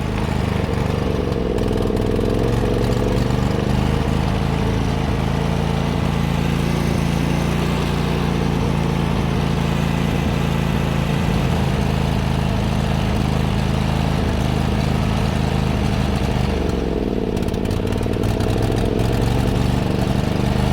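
John Deere GT245 lawn tractor's Kawasaki FH601V V-twin engine running steadily under load, its pitch sagging and recovering about a second in and again near the end.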